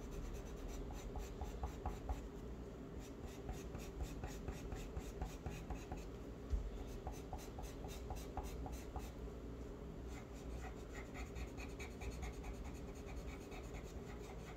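Pencil on paper, drawing in many quick short strokes with a faint scratching.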